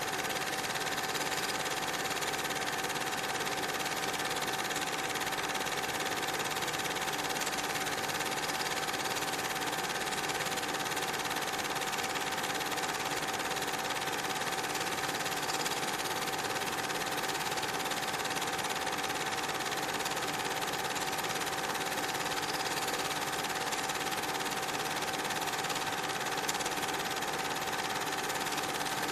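Steady mechanical whirr with a constant high hum through it, running evenly without change.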